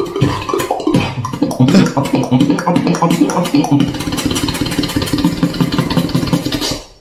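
Human beatboxing: one beatboxer's rapid mouth-made clicks and snares layered over a buzzing, pitched bass line. It cuts off abruptly just before the end.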